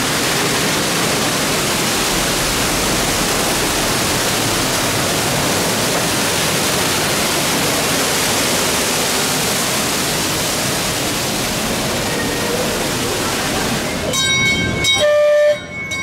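Artificial waterfall pouring down rockwork, a loud, steady rush of water. Near the end the ride's mine train sounds a few short horn blasts.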